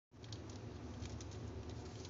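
Soft scattered clicks and rustles of a mother cat licking and nosing her newborn kittens as they shift on the sack lining of their box, over a steady low hum.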